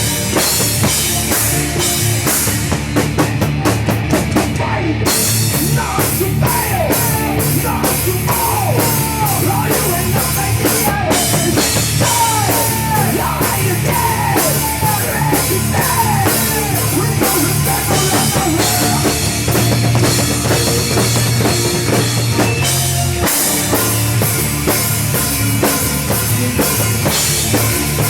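Rock music with a full drum kit, the bass drum and cymbals keeping a steady beat. Through the middle, a lead part plays a run of repeated falling slides.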